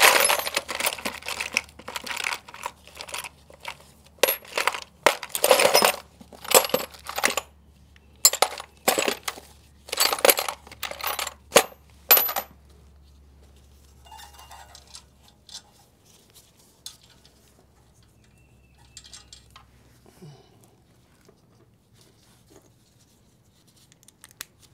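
Loose metal sockets clinking and rattling against each other as they are rummaged through and picked out, in a dense flurry of clinks with some bright metallic ringing for about twelve seconds, then only a few faint handling sounds.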